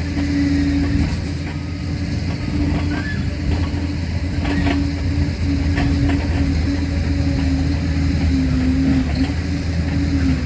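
Liebherr PR 746 crawler dozer working: its diesel engine runs steadily with a constant whine over it, and its steel tracks clank and knock now and then.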